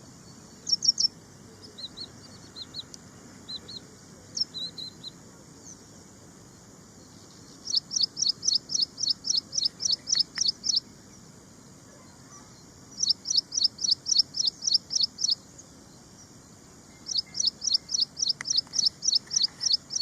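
Ashy prinia singing. A few scattered high chips come first, then three long runs of rapid, evenly repeated high notes, about four or five a second, each run lasting some three seconds.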